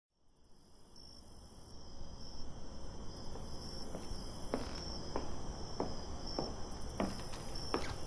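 Crickets chirping fade in as an ambience bed, and from about halfway a slow, even series of footsteps joins them, roughly one step every 0.6 seconds.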